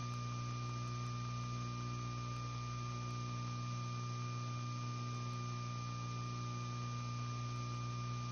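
Steady electrical hum with a faint, thin high-pitched tone over an even hiss, with no speech getting through the audio line.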